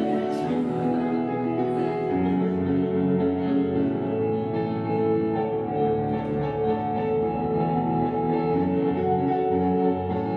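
Slow instrumental music with held notes and a plucked-string sound like guitar.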